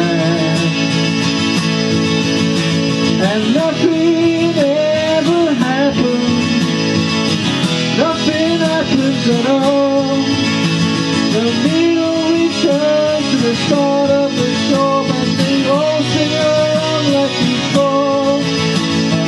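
Small band playing live with guitar prominent. From about three seconds in, a lead melody that bends and wavers in pitch runs over the steady backing.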